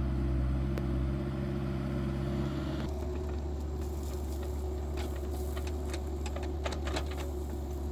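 Engine of the machine digging the tank hole running steadily, its tone changing about three seconds in. Scattered clinks and knocks come in the second half.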